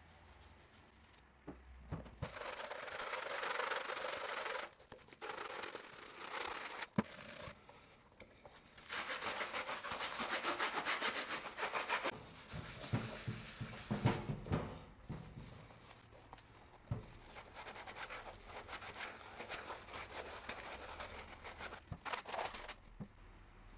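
A sponge scrubbing the leather of a sneaker in bursts of rubbing strokes with short pauses between them. The strokes start about two seconds in and grow softer in the second half.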